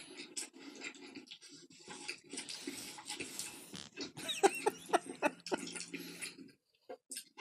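A person eating noisily: wet chewing, lip-smacking and slurping in quick irregular smacks, with a short run of pitched squeaky sounds a little past the middle.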